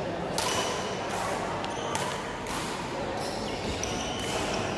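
Badminton rally: rackets hitting a shuttlecock back and forth, several sharp hits about a second apart over a steady hall background.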